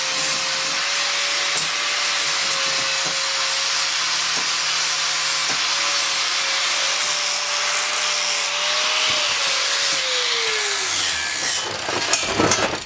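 A motorized power tool running steadily with a hissing whine, then spinning down with a falling pitch about ten seconds in, followed by a few light clicks.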